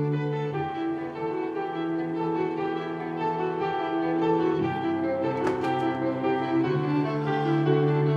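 Instrumental music with long held bowed-string notes and piano, the chords changing every second or so. A brief sharp click or clink about five and a half seconds in.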